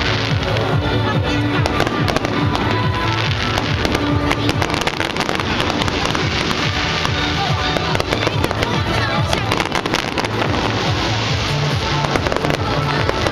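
Fireworks display going off continuously: dense, overlapping crackles and bangs with no pause, over loud music with held low notes.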